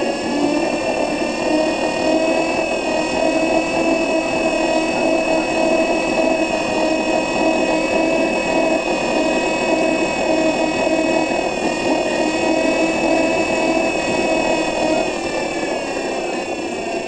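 Electric bus's drive motor whining: several steady high tones that climb slightly at the start, hold level, then drop in pitch and fade near the end as the bus slows.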